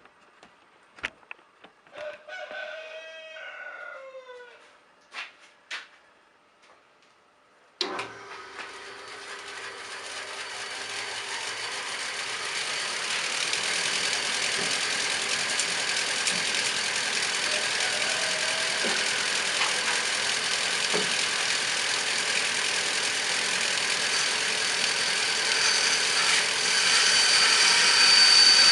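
A rooster crows once, among a few light knocks. About eight seconds in, a machine starts abruptly and runs with a steady rushing noise that grows louder over the following seconds.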